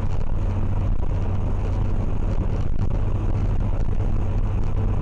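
Steady road and engine noise inside a moving car, with a constant low hum, picked up by a dashcam's microphone while cruising on a highway.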